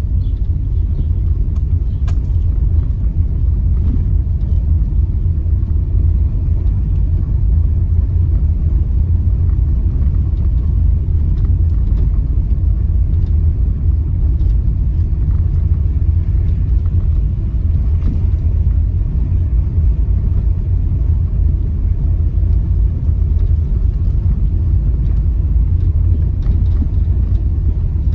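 Car driving slowly over a cobblestone street: a steady low rumble of tyres and road.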